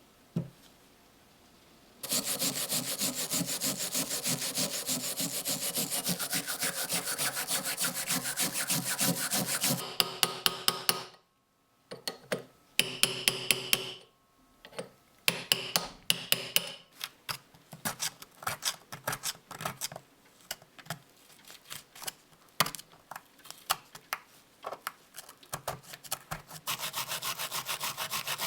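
Rapid back-and-forth scraping strokes of a hand tool working the metal of an old time fuse. About 2 s in, the strokes start and run evenly for several seconds. A few sharp clicks and a short pause follow, then irregular taps and short scrapes, and steady scraping again near the end.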